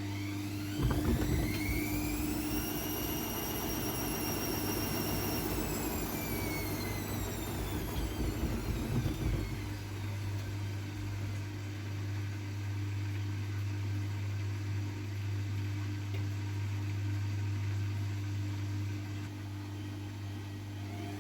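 AEG Lavamat W 1450 washing machine turning its drum: the motor whine rises, holds for a few seconds and winds down while the towels tumble and slosh, then the drum rests with a steady low hum until the motor starts rising again near the end.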